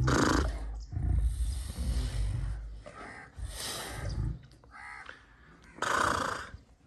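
Lioness growling and snarling at close range through cage bars: a deep growl for the first few seconds, broken by breathy snarls, with a last loud snarl about six seconds in.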